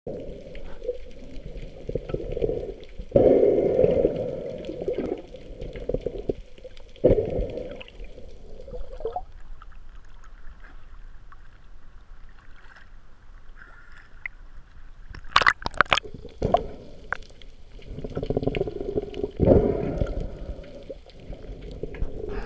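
Muffled water sloshing and gurgling around a camera in the sea, picked up partly underwater, coming in several low surges. A few sharp splashes stand out about fifteen seconds in.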